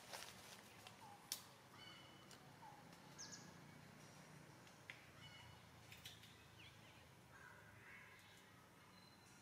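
Very quiet background with scattered faint, short high chirps and squeaks, a few sliding down in pitch, and two sharp clicks in the first second and a half.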